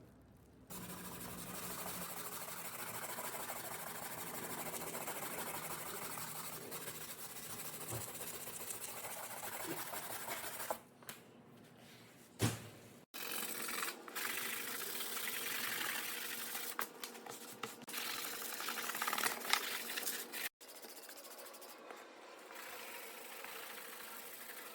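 Abrasive rubbing on the metal of a rusty toolbox: a steady scratchy rubbing in several stretches, twice cut off abruptly.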